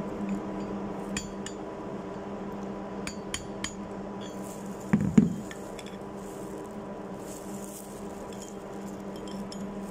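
Sharp metal taps and clicks of a screwdriver blade working the locking washer and nut on a globe valve's disc, with one heavier knock about five seconds in. A steady hum runs underneath.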